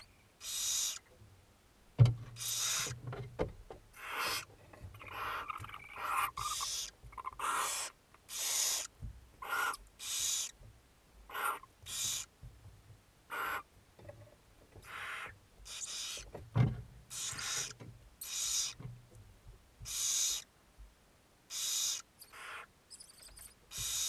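Barn owls giving repeated raspy hissing calls, roughly one a second, the food-begging "snoring" heard at a barn owl nest. A sharp thump about two seconds in and another later on.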